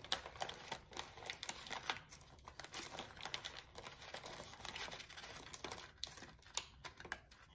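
Plastic Oreo cookie packaging crinkling and crackling in irregular bursts as a cookie is pried out of it by hand.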